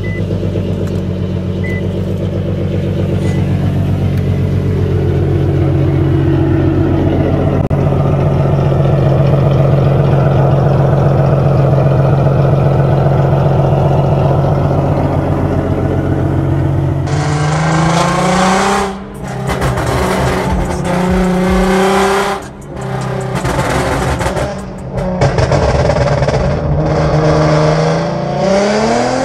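2014 Infiniti Q50 Sport's V6 exhaust, running on test pipes and an aftermarket GReddy exhaust. It holds a steady drone for about the first seventeen seconds, then turns louder and rougher, revving up repeatedly with brief dips in between.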